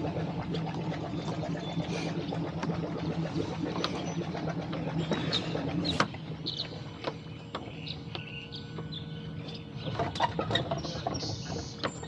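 Splashing water and irregular knocks around a rowboat under way on choppy water, with short bird chirps. A low steady hum underneath fades out about halfway.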